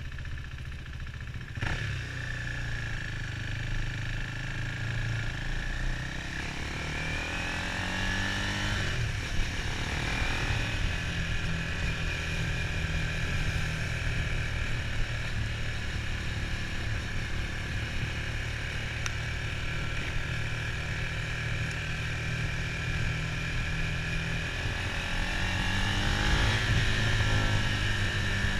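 Motorcycle being ridden: the engine runs steadily over a low rumble, its revs climbing about eight seconds in and again near the end.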